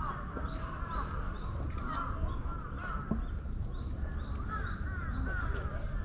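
A chorus of birds calling, many short rising-and-falling calls overlapping without a break, over a low steady rumble.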